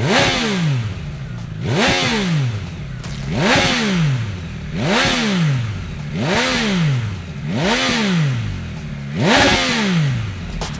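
Triumph Tiger Sport 800's three-cylinder engine revved through a Scorpion stainless slip-on exhaust: seven quick throttle blips about every one and a half seconds, each rising in pitch and dropping back to idle.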